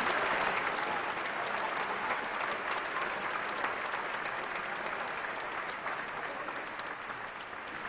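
A large congregation applauding in a cathedral, the applause slowly dying down.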